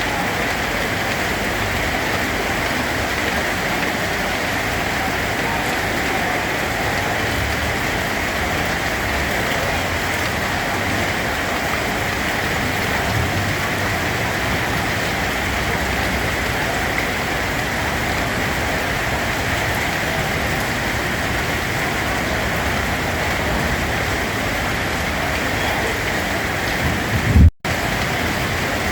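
Steady rain falling on a surface, a dense even hiss. Near the end there is a short low thump, and then the sound cuts out for a split second before the rain resumes.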